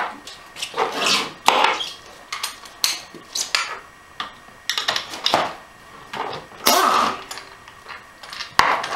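Pneumatic impact wrench with a long extension running in short bursts, each about half a second, as it spins the 14 mm case bolts out of an AX5 manual transmission. Metal clinks from the socket, extension and loosened bolts come between the bursts.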